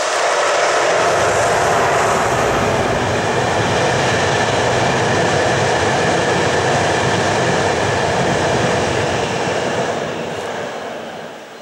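Passenger train of Intercity-livery coaches running past on an electrified line: a steady rumble of wheels on the rails that holds while the coaches go by, then fades away over the last couple of seconds as the tail of the train passes.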